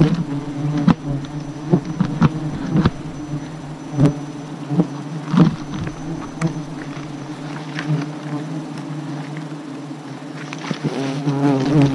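A dense cloud of honeybees buzzing around an exposed comb: a steady low hum, with scattered sharp ticks.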